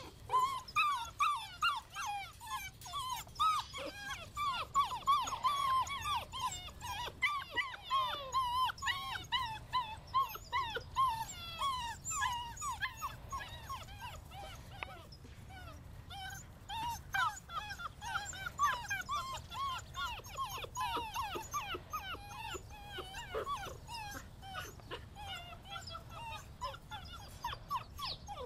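A litter of seven-week-old German Shorthaired Pointer puppies whimpering and whining, many short high cries overlapping one another. The cries ease off for a couple of seconds about halfway, then pick up again.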